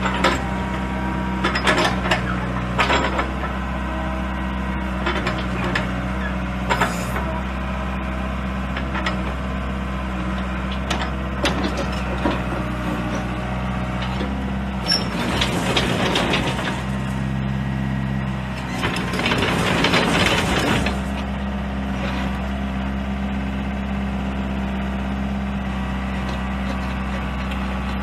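Doosan DX55-9C mini excavator's diesel engine running steadily while the boom and arm move. Scattered clanks come in the first several seconds, and there are two louder stretches of rushing noise a little past halfway.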